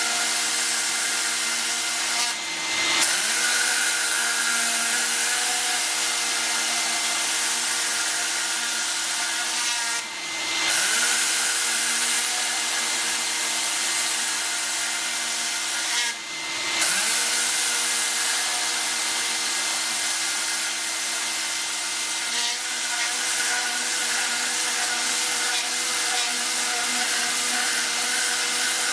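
Tornador Black air-powered cleaning gun blowing compressed air in a steady, loud hiss, with a steady machine hum underneath. The air flow briefly dips and surges back three times, as the trigger is let go and pressed again.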